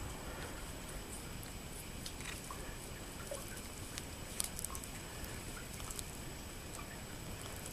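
Light, scattered taps and scratchy clicks of a cat at play, with a brief cluster of sharper clicks about four seconds in, over a steady background hiss.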